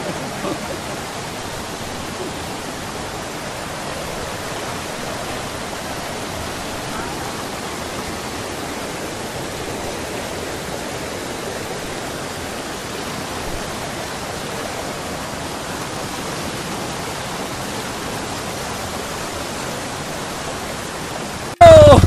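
Rapids of a fast, rocky river: white water rushing over boulders, a steady, even hiss with no change. It cuts off abruptly near the end.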